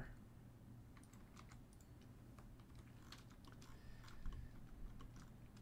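Faint, irregular keystrokes on a computer keyboard, scattered clicks over a low steady hum.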